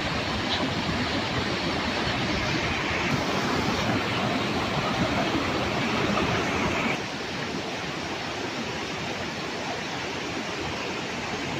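Steady rushing roar of a waterfall, a little quieter from about seven seconds in.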